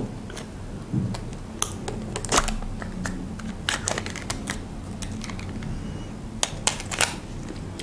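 Foil lid being peeled off a plastic yogurt cup: irregular crinkles and sharp little clicks, in short clusters about two, four and seven seconds in.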